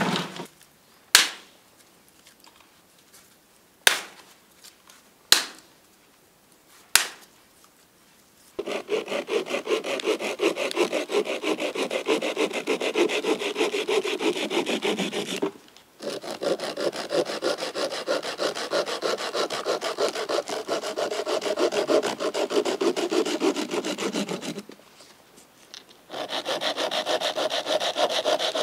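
Hand saw cutting through a dry branch in quick back-and-forth strokes, in three runs of several seconds with two short pauses between. Before the sawing, a clatter of sticks dropped on the ground and four single sharp cracks a second or two apart.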